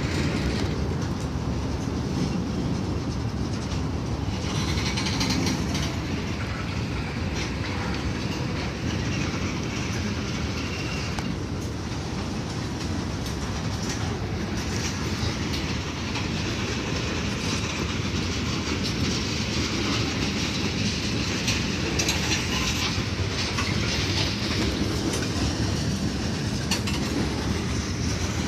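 Norfolk Southern mixed freight train's cars rolling past steadily, steel wheels running over the rails.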